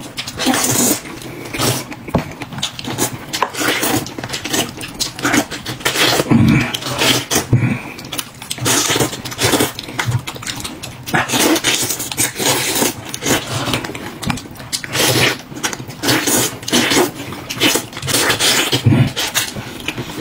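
Eating sounds close to the microphone: rapid, irregular chewing and mouth smacking.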